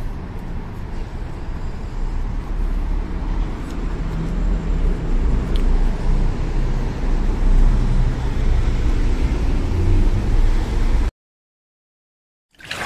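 Street traffic noise with a heavy low rumble, growing louder and then cutting off abruptly about eleven seconds in. After a second of silence, a short sound effect begins near the end.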